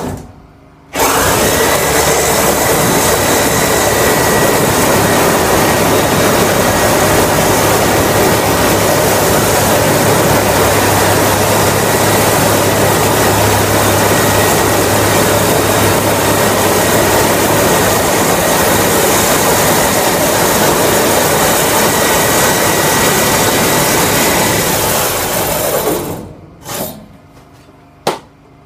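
Angle grinder with a thin metal-cutting disc running steadily with a constant whine as it plunge-cuts through a sheet-metal wall. It starts about a second in and winds down a few seconds before the end, followed by a few brief noises.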